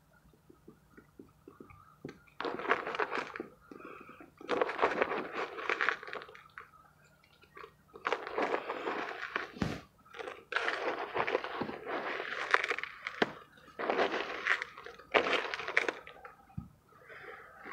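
Mothballs and their crumbled powder crunching and grating in a clear plastic bowl as a hand squeezes and rummages through them. The sound comes in about six bursts of a second or two each, with only faint clicks in the first two seconds.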